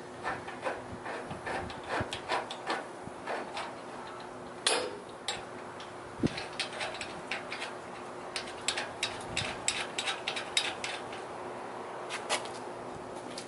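Hand ratchet wrench clicking in short runs as a bolt is turned, fastening a rear suspension link to its frame bracket, with one louder metal knock about five seconds in.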